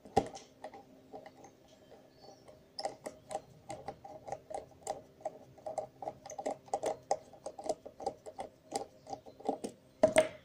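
Small screwdriver turning a tiny screw out of a plastic camcorder lens assembly: a run of light ticks, several a second, with a sharper click at the start and a louder one near the end.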